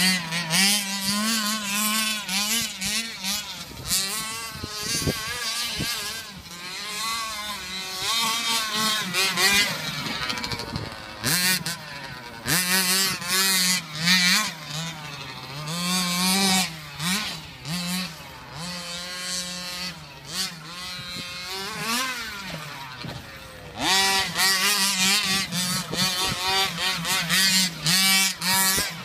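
Gas two-stroke engine of a 1/5-scale Redcat RC truck revving up and down as the truck is driven hard on loose dirt, its pitch rising and falling with the throttle. It is softer through the middle stretch and louder again near the end.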